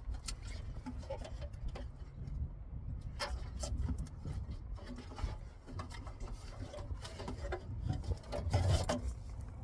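Foil-backed sound-deadening mat being handled and stacked, with irregular crinkling and clicking from the stiff sheets over a steady low rumble.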